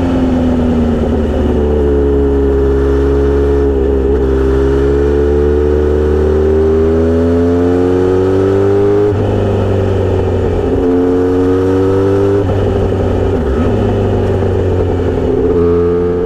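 Kawasaki Z900RS inline-four running loud through a Misty Kintaro short straight-pipe silencer. Under a steady low exhaust note, a higher tone climbs slowly and drops suddenly about nine seconds in, then climbs and drops again a few seconds later.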